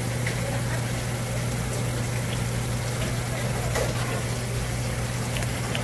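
A water pump hums steadily under the hiss of running water, with a few faint ticks of knife work on the cutting board.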